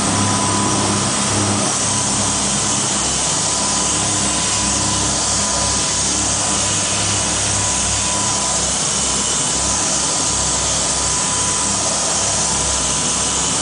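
Motor cruiser's engines running flat out at about 14 knots, a steady drone under the constant rush of water and wind around the hull, heard from inside the cabin.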